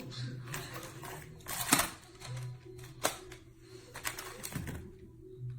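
Hard plastic toy pieces, magnetic tiles, clicking and clattering in scattered knocks, the loudest about a third and a half of the way in, over a low steady hum.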